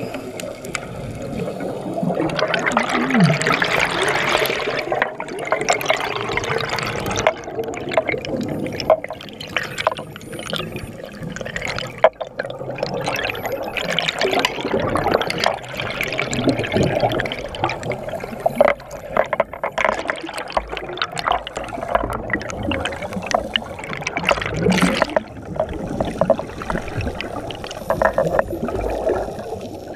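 Scuba exhaust bubbles rushing and gurgling past an underwater camera in uneven surges.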